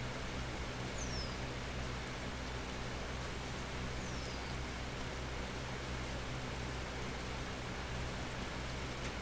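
Steady natural rain falling under an almond tree, an even hiss with no letup. Two short, high, falling whistles come through the rain about a second and four seconds in.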